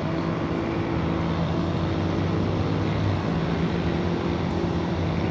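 Steady low mechanical drone with a constant hum, engine or machinery noise from the surroundings.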